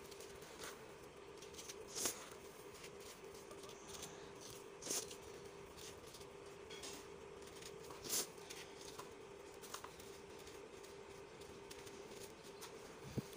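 Dry, gritty soil being crumbled between the fingers: fine crackling and trickling grains, with louder crunches about two, five and eight seconds in and again near the end. A faint steady hum runs underneath.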